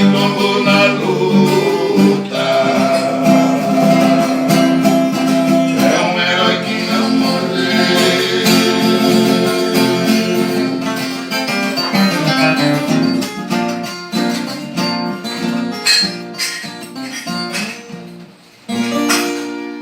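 Instrumental ending of a Brazilian moda de viola: viola caipira and guitar plucking a melody over a steady accompaniment. It thins out, pauses briefly near the end, then closes on a held final chord.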